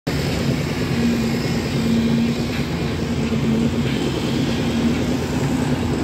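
Engine of a concrete pump machine running steadily, a continuous loud drone with a constant hum.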